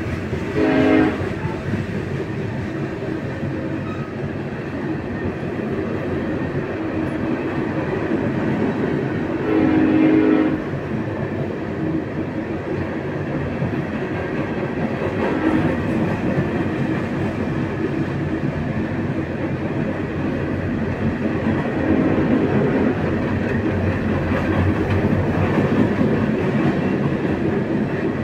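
Freight train cars rolling past at speed: a steady rumble and clatter of wheels on the rails. Two short horn blasts, one about a second in and one about ten seconds in.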